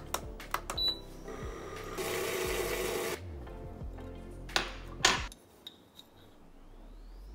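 An electric milk frother is switched on with a click of its dial and whirs steadily for about two seconds, over background music. A few seconds in come two sharp clicks as the lid comes off a jar of instant coffee.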